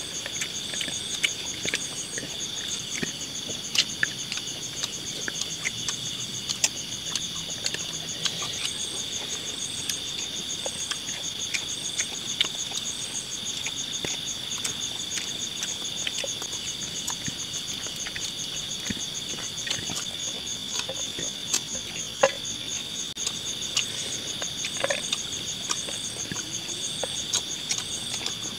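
Crickets and other insects trilling steadily at several high pitches, with a pulsing chirp above them that comes and goes in repeated runs. Scattered light clicks and taps sound over it.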